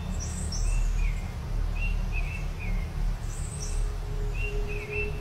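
Songbirds chirping in the woods, a string of short, quickly falling calls repeated every half second or so, over a steady low rumble on the microphone. A faint steady hum comes in about three-quarters of the way through.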